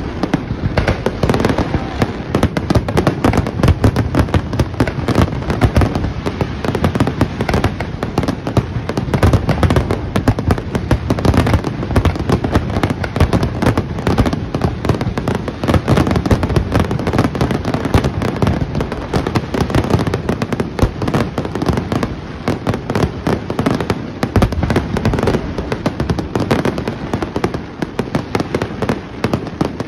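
Fireworks show finale: aerial shells bursting in rapid, overlapping succession, a continuous barrage of bangs and crackling with no pause.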